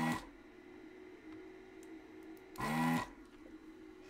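ZD-915 desoldering station's vacuum pump running in two short bursts, one right at the start and one about two and a half seconds in, each rising in pitch as the motor spins up, as the gun sucks molten solder off the keyboard switch pins. A faint steady hum runs underneath.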